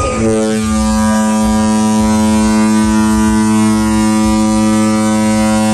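Carnival Horizon's ship horn sounding one long, loud blast on a single deep, steady note rich in overtones.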